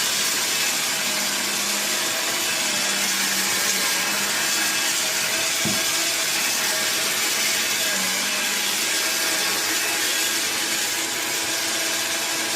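Hoover Linx Signature 18V cordless stick vacuum cleaner running steadily, a constant airy hiss with a faint steady hum under it.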